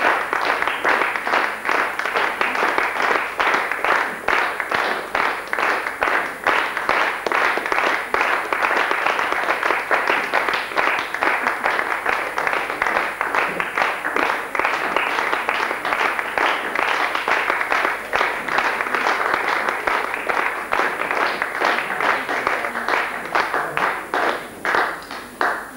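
Audience applauding, with dense steady clapping that thins out near the end.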